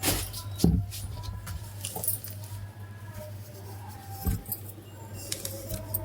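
A few scattered sharp clicks and knocks over a steady low hum.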